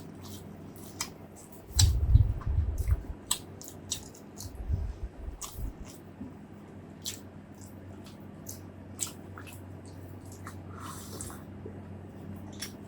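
Close-miked wet chewing and mouth sounds of a person eating: sticky lip smacks and clicks throughout, with heavy low thuds about two seconds in and again near five seconds.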